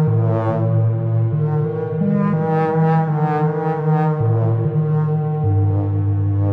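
Buchla 208r synthesizer played from a Make Noise 0-Ctrl's touch plates: a brassy synth line of repeated bright note swells, under a second apart, over low held bass notes that step to a new pitch several times.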